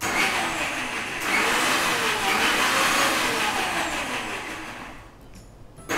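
Electric mixer grinder with a stainless steel jar coarsely grinding green chillies and ginger with a little water, its motor whirring in a pitch that sags and rises. It is run in short bursts for a coarse grind: the motor cuts off about five seconds in and starts again near the end.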